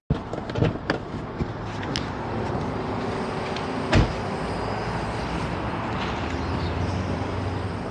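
Steady outdoor traffic and vehicle noise with a low hum, a few light clicks in the first two seconds, and one sharp thump about four seconds in.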